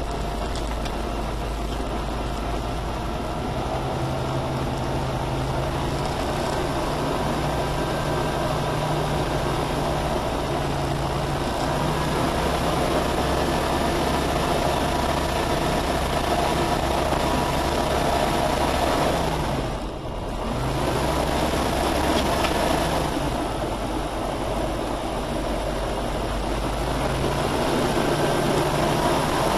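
Diamond HK36 Super Dimona motor glider's Rotax four-cylinder engine and propeller running steadily, with a brief dip in level about two-thirds of the way through.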